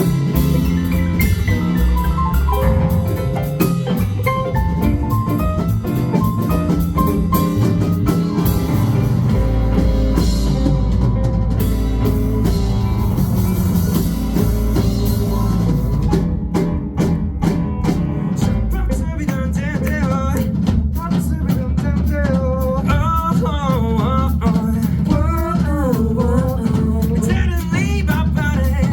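Live funk band playing an instrumental jam over a steady drum kit groove. About two-thirds of the way through, a lead line comes in that bends up and down in pitch.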